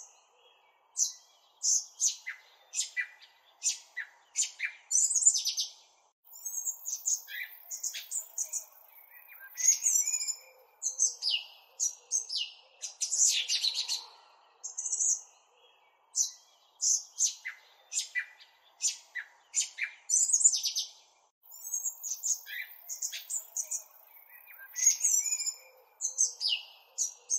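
Small birds chirping and twittering in rapid runs of short, high calls, with brief gaps between the runs.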